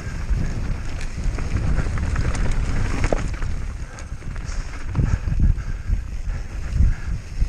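Wind buffeting the microphone in a low, steady rumble, over scattered clicks and rattles from a mountain bike descending a rough trail at speed.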